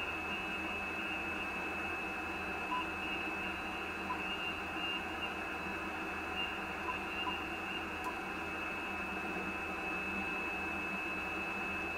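Icom IC-756PRO III shortwave transceiver's speaker hissing with steady band noise while receiving on the 17-metre band in upper sideband, listening for replies between calls with no station coming through.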